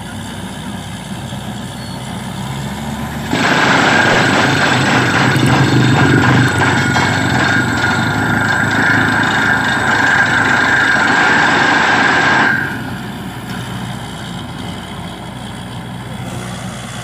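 Heavy diesel engine of a borewell drilling rig and air compressor running steadily. About three seconds in, a loud rushing noise with a steady whistle starts suddenly over it, lasts about nine seconds, then cuts off suddenly.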